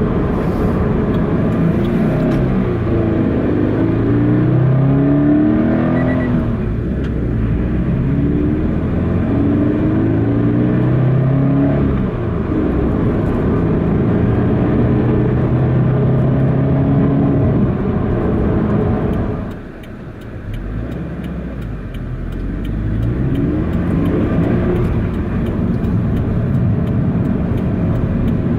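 Subaru BRZ's 2.0-litre flat-four breathing through a Blitz NUR-SPEC C-Ti titanium exhaust, pulled hard towards about 7,000 RPM. The pitch climbs through several gears and drops at each shift. Near the end the engine eases off briefly, then climbs again.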